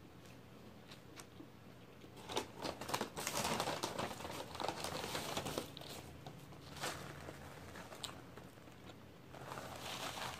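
Paper takeout bag rustling and crinkling as a hand rummages inside it, with small crackles throughout. A paper napkin rustles again near the end.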